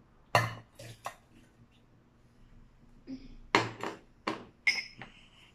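A bowl and utensils knocking and clinking against a steel mixer-grinder jar as watermelon pieces are tipped in. Three sharp knocks in the first second, then a quicker run of five more, one of them ringing briefly.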